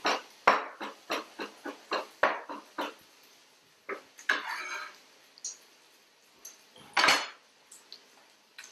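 Chef's knife chopping on a cutting board, mincing reconstituted mushroom stems with quick regular strokes, about four a second, stopping about three seconds in. A few scattered knocks and short scrapes follow, the loudest just after seven seconds in.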